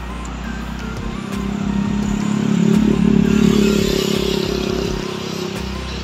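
A motor vehicle passing close by, its engine sound swelling to a peak about three seconds in and then fading away.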